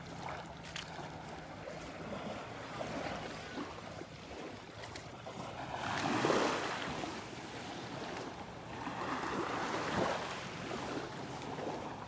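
Small Gulf of Mexico waves washing up on a sandy beach, swelling louder about six seconds in and again around nine to ten seconds, with some wind on the microphone.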